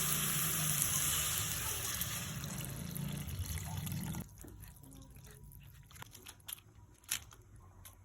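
Water running from a tap for about four seconds, then cut off abruptly, followed by a few faint clicks and knocks.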